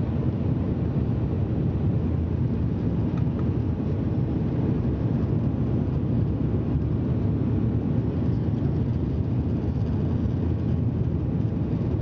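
Cabin noise inside a Bombardier Dash 8 Q400 turboprop airliner on approach: the steady low drone of its Pratt & Whitney PW150A engines and six-bladed propellers, heard through the cabin wall beside the wing.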